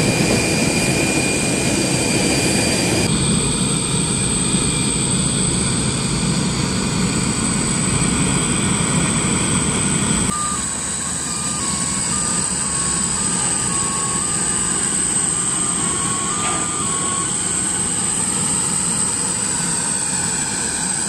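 Boeing 747 freighter's jet engines running steadily with a high whine. The sound changes abruptly twice, about three and ten seconds in.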